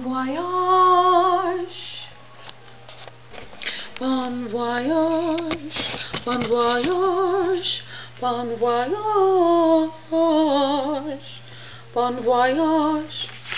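A woman singing wordless held notes with a strong vibrato, in five short phrases with pauses between them. A steady low hum runs underneath.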